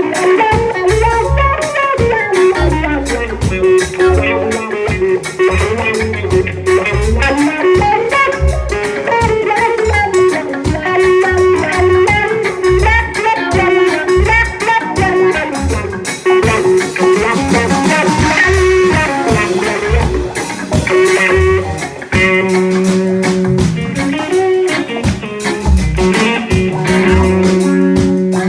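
Live reggae band playing an instrumental break: electric guitar over bass guitar and drum kit, with no vocals.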